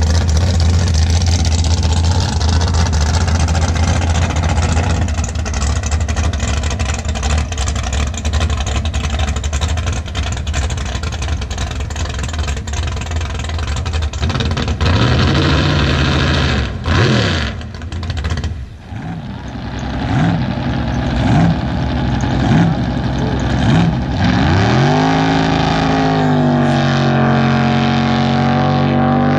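Racing boat engines running hard out on the water, a loud, steady drone. About halfway through, an engine's pitch rises and falls several times as it revs up and down, then it settles into a steady droning tone near the end.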